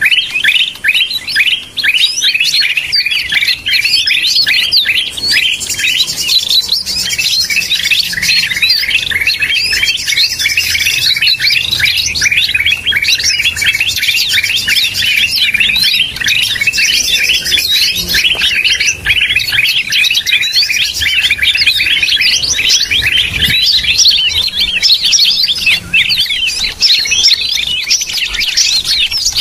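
Green leafbird (cucak ijo) lure recording: a dense, unbroken stream of fast rising and falling chirps from several birds calling at once. This is a bird-trapping call meant to draw in wild leafbirds.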